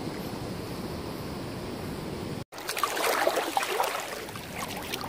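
Flowing river water with a steady rush, then, after a brief dropout about halfway, choppier lapping and splashing of water right against the camera at the surface.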